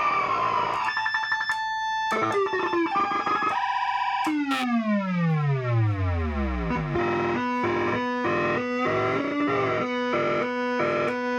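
Distorted electronic tones from a Septavox: a stretch of stuttering, glitchy notes, then a tone that sweeps steeply down in pitch for about two and a half seconds, followed by a chord pulsing about twice a second.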